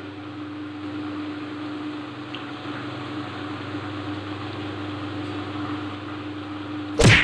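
Steady motor hum with a constant low droning tone, like a room fan running. Near the end there is a brief, loud swish.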